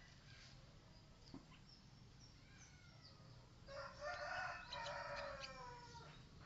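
A rooster crows once, a long call of about two seconds that starts about four seconds in and falls in pitch at the end. Faint, high chirps of small birds come and go around it.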